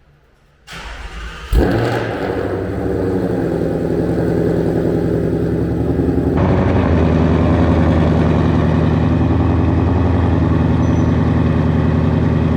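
Ford Mustang GT's 5.0 V8 cranked on the starter, catching about a second and a half in with a brief loud flare, then idling steadily.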